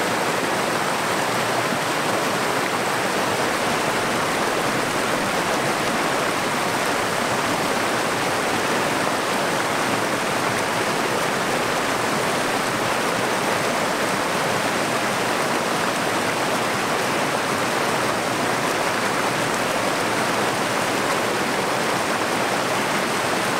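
A stream running over riffles: a steady, even rush of water.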